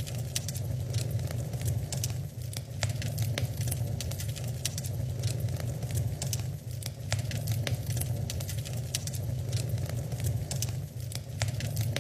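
Wood fire in a fireplace crackling, with many quick, irregular pops and snaps over a steady low rumble.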